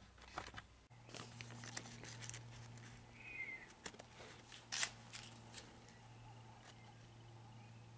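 Faint scattered clicks and taps over a low steady hum that starts about a second in, with one short high chirp near the middle.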